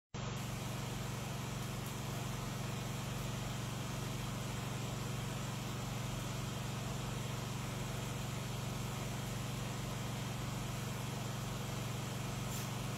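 Steady low hum with a constant hiss, unchanging throughout: background noise picked up by the microphone setup.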